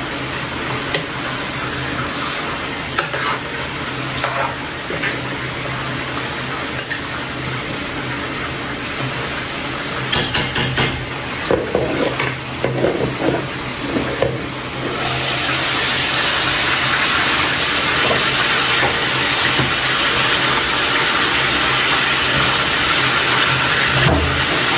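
Chicken with curry powder sizzling in a pan while a spoon or spatula stirs it, with scattered scrapes and knocks against the pan. The sizzling grows louder about fifteen seconds in, over a faint low steady hum.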